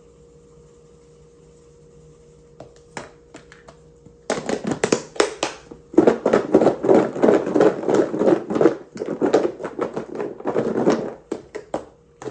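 Sliced raw potatoes shaken hard inside a lidded plastic food container to coat them in oil and seasoning: a few light clicks, then from about four seconds in a loud, rapid rattling clatter for several seconds that stops near the end.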